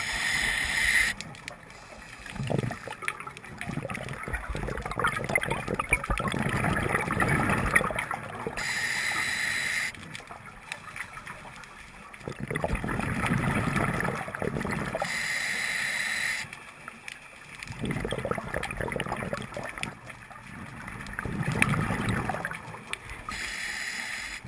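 Scuba diver breathing through a regulator, heard underwater: a short hissing inhale about every seven seconds, four in all, each followed by a long, rumbling, gurgling stream of exhaled bubbles.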